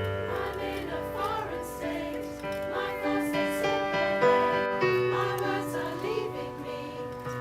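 A choir singing, with many held notes under the moving voices. A low held note comes in about five seconds in.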